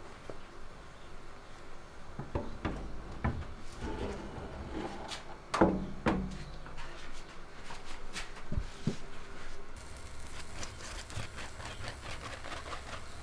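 Metal baking tray being slid out of a small countertop electric oven: scattered knocks and scrapes of the tray against the oven's rack and door, with one louder clunk about five and a half seconds in.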